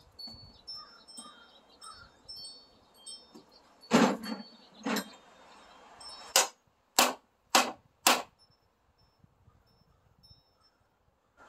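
Claw hammer pounding metal on a snapped bolt: two heavy blows about four seconds in, then four sharper blows about two a second.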